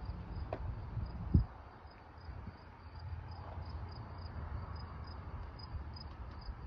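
Insects chirping in a high, even rhythm of about three chirps a second, over a low rumble on the microphone, with a single thump about a second and a half in.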